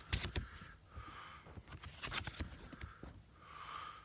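Handling noise from a hand-held phone: a few sharp knocks near the start and again about two seconds in, with brushing and rustling between them as a hand moves over the phone close to its microphone.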